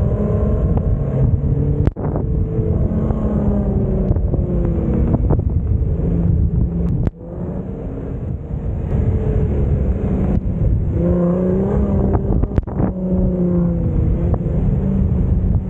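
Off-road 4x4 engine revving up and down while driving across soft sand dunes, over heavy wind rumble on the microphone. The sound breaks off abruptly three times.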